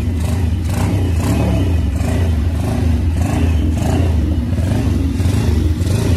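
Yinxiang X150 single-cylinder four-stroke engine of a Nicot PT150 pit bike running loud and steady, its revs rising and falling a little.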